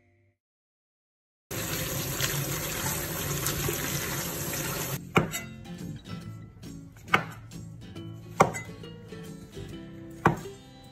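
Water running for about three and a half seconds, then a large kitchen knife slicing mushrooms on a cutting board: five sharp knocks of the blade meeting the board, about one to two seconds apart.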